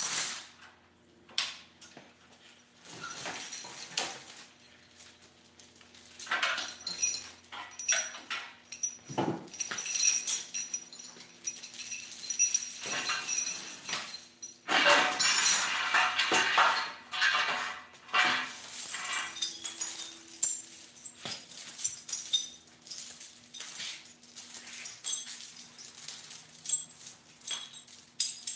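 Metal tools and small engine parts clinking, clattering and scraping as they are moved and rummaged through on a workbench, with the loudest run of clatter about halfway through.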